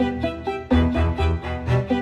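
Instrumental background music: a melody of steady notes over a pulsing bass line, in an even rhythm.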